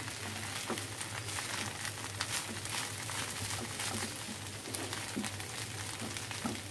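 Bhuna khichuri crackling and sizzling faintly in a pan on a gas stove, with scattered light pops over a steady low hum.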